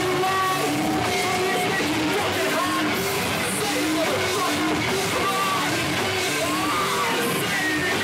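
Metalcore band playing live at steady loudness: distorted electric guitars and bass repeating a riff over drums, with shouted vocals.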